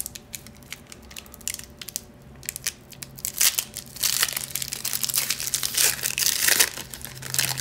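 A foil trading-card pack being crinkled and torn open by hand, a dense crackling that gets louder about four seconds in.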